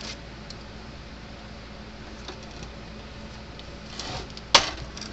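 Hands working a circuit board loose from the fence charger's case: a few faint ticks and a brief rustle, then one sharp click about four and a half seconds in, over a steady low hum.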